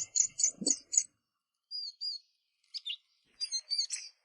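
Young hand-reared birds begging for food with rapid, high chirps, about four a second, which stop about a second in. A few scattered chirps follow later on.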